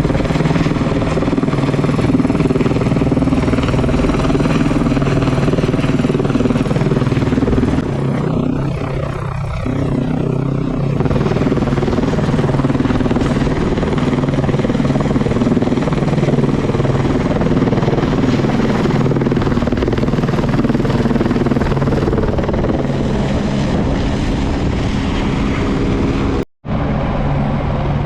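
Helicopter engine and rotor running steadily in flight, a dense drone with several steady tones. The sound drops out for an instant near the end.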